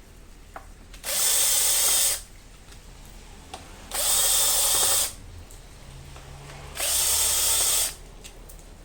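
A power drill/driver runs in three short bursts of about a second each, backing out the clutch-cover screws one after another after their torque has been broken by hand.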